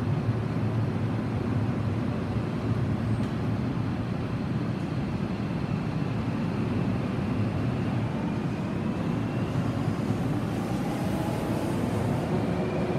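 Seibu 40050-series electric train pulling away from a platform: a steady low rumble, with a faint whine that rises slowly in pitch from about halfway as the train gathers speed.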